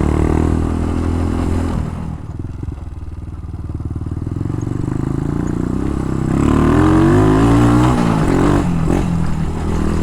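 Dax-style minibike's four-stroke engine running under way. It eases back to a lower, quieter note for a few seconds, then revs up again with a rising pitch about six seconds in.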